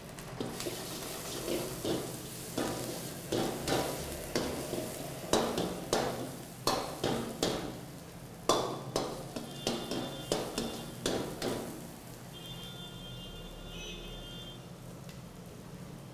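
Metal ladle scraping and knocking against a kadai as chopped small onions and capsicum are stir-fried in hot oil, in quick repeated strokes about twice a second. The frying sizzles underneath, and the strokes stop about twelve seconds in.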